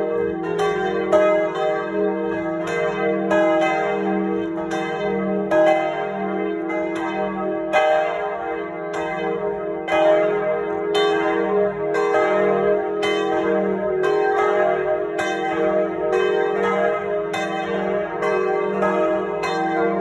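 Three swinging bronze church bells, of about 1000, 750 and 500 kg, ringing together in full peal, heard close up inside the belfry. Clapper strokes fall several times a second in an irregular overlapping pattern over a steady sustained hum of the bells' ringing.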